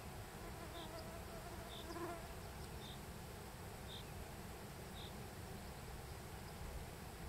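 Faint outdoor ambience: a short high chirp repeats about once a second over a low rumble, and a brief insect-like buzz passes about two seconds in.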